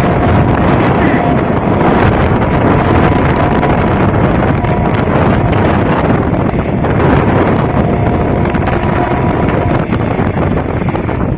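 Heavy wind buffeting the microphone, with a set of tuned Vietnamese kite flutes (sáo diều) sounding through it as faint steady tones that come and go.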